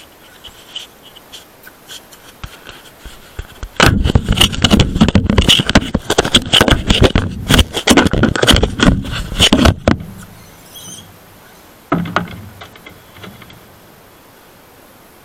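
Plastic snack wrappers crinkling loudly in a hand close to the microphone for about six seconds, starting about four seconds in. A short knock comes about two seconds after the crinkling stops.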